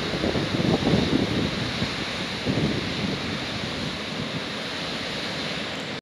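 Waves breaking on a lake beach in a strong wind: a steady rush of surf, with wind gusting against the microphone in low rumbling pulses during the first three seconds or so.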